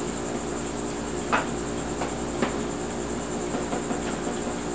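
Kitchen knife chopping turkey bacon on a plastic cutting board: a few light taps, the two clearest about a second apart, over a steady high-pitched hiss and a low hum.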